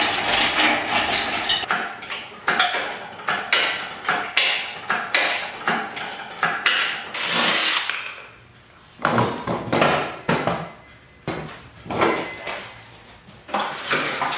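Irregular metal clanks and knocks of hand tools working on a go-kart frame, with a short burst from a power tool about seven seconds in.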